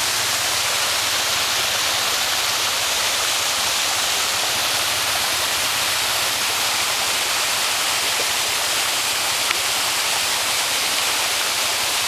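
A modest rainforest waterfall splashing down a rock face into a pool: a steady, unbroken rush of falling water.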